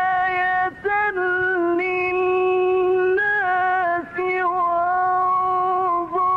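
A man's voice reciting the Quran in the melodic, drawn-out mujawwad style. He holds long notes and turns them slowly, with a few brief breaks, about a second in, about four seconds in and near the end.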